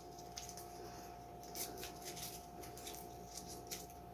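Faint crinkling and rustling as the fried butter-paper wrapper of a kabab is pulled open by hand, in short scattered crackles over a faint steady hum.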